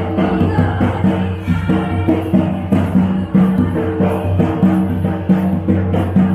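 Folk music with a steady drum beat and jingling percussion over sustained pitched tones.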